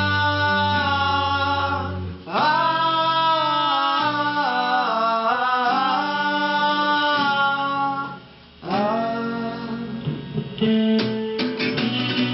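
Live rock music on guitars with long held wordless sung notes that slide in pitch, breaking off briefly about two seconds in and again around eight seconds; plucked guitar notes near the end.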